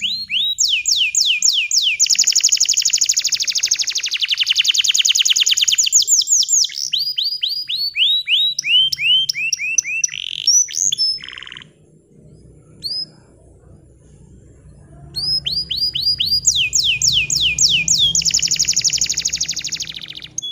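Bottle-green domestic canary singing long, fast trills of rapidly repeated sweeping notes. The song breaks off for a few seconds a little past halfway, then a new trill starts.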